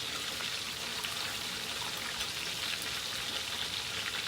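Food frying over a fire pit: a steady sizzle with many fine crackles.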